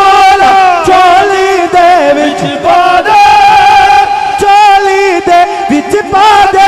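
Male naat reciter singing through a microphone in Punjabi-Urdu devotional style: long, wavering held notes with slides between pitches and no clear words. A steady drone holds underneath the voice.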